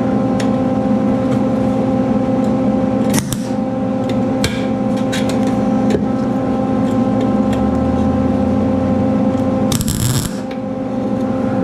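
MIG welder laying a single short tack weld on a steel motorcycle seat pan: a brief crackling burst about ten seconds in, lasting under a second. A steady hum runs underneath, with a few light clicks from handling the torch and the part.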